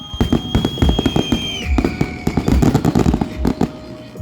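Fireworks going off: rapid crackling pops and repeated deep booms from bursting shells.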